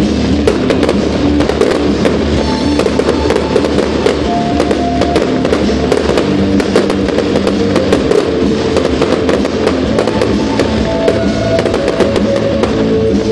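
Fireworks display: aerial shells and ground fountains crackling and banging in quick succession, mixed with music that plays throughout.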